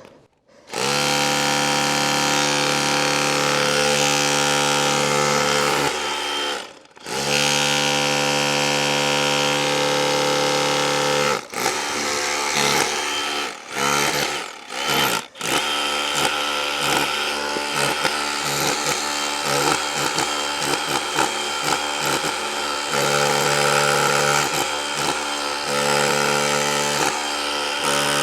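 DeWalt DCH263 cordless SDS-plus rotary hammer running in chipping mode, hammering a chisel bit into the wall in long runs. It stops briefly about seven seconds in and pauses a few times around the middle.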